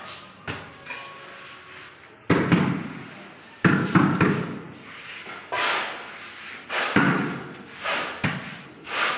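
Several loud thumps and bangs, irregularly spaced, each dying away in the echo of a large hall.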